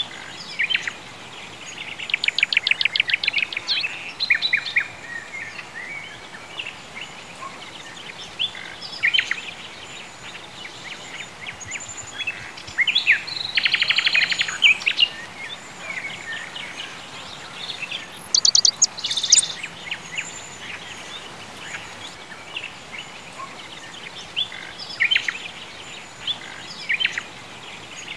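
Several songbirds singing and chirping over a steady faint outdoor hiss, with rapid trills about two seconds in, around thirteen seconds in, and a higher, sharper trill near nineteen seconds.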